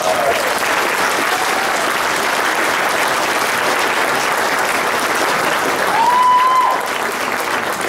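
Audience applauding steadily at the end of a choir's song, with a short high-pitched cheer from someone in the crowd about six seconds in.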